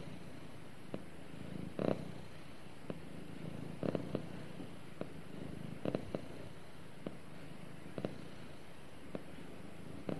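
Domestic cat purring steadily while its head is stroked, the purr swelling louder about every two seconds, with faint short ticks in between.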